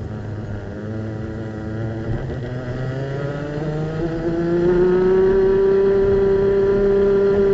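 Racing kart's two-stroke engine heard onboard, running at low revs through a slow corner, then accelerating from about three seconds in. Its pitch rises and it holds a high, louder note near the end as the revs climb toward 12,000 rpm.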